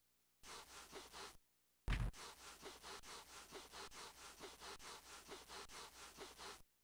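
Cartoon sound effect of a dog's feet scuffing across carpet to build up static: a rhythmic scratching of about three strokes a second, a short burst of it first, then a sudden loud thump about two seconds in, then steady scuffing that stops just before the end.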